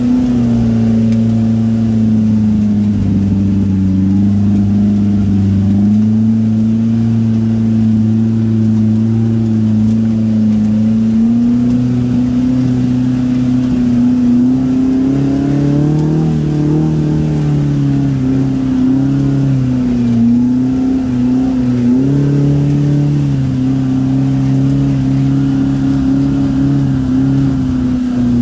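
Polaris RZR Pro R's four-cylinder engine running at low, even speed as the side-by-side crawls along a dirt trail, its pitch rising and falling gently with the throttle, highest around the middle.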